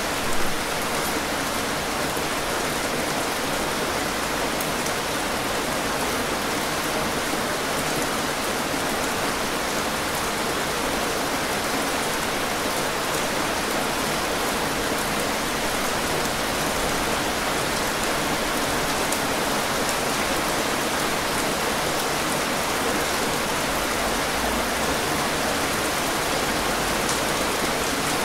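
Heavy rain falling steadily: a dense, even hiss of drops with scattered sharper drop hits. There is one brief louder burst about half a second in.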